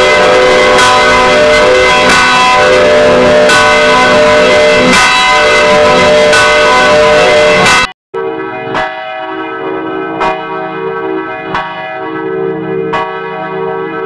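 Church bell ringing, struck about every second and a half. For the first eight seconds it is very loud and harsh, heavily processed with audio effects. After a brief dropout it rings on cleanly and more quietly, each stroke leaving a ringing tone.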